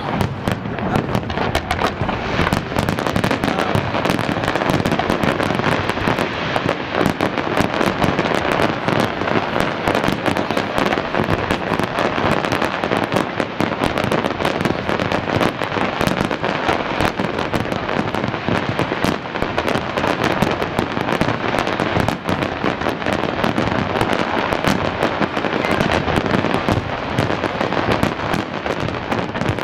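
Aerial fireworks display: many shells bursting at once in a dense, unbroken barrage of bangs and crackling.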